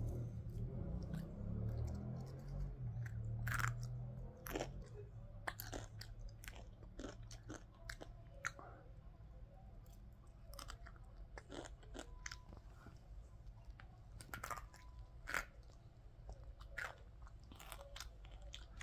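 A person chewing and biting crunchy snack food close to the microphone, with irregular sharp crunches.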